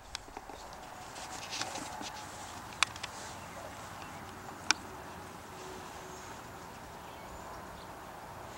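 Quiet outdoor ambience with light rustling, broken by two sharp clicks about two seconds apart.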